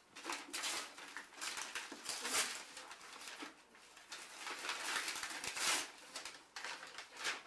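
Wrapping paper rustling and tearing in a run of short, crackly bursts as a birthday present is unwrapped.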